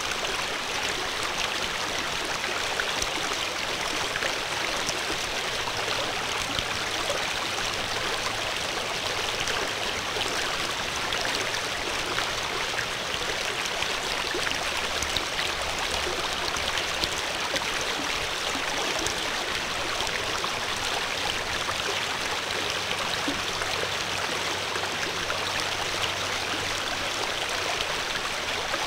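Steady rushing of a running stream, with no breaks or changes.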